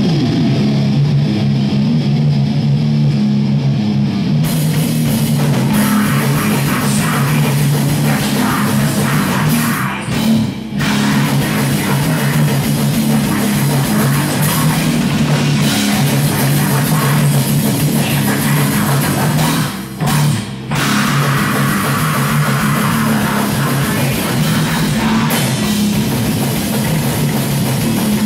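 Live death/thrash metal band playing: heavily distorted electric guitars, bass and a drum kit, loud and dense. The cymbals come in about four seconds in, and the music breaks off briefly twice, about ten seconds apart.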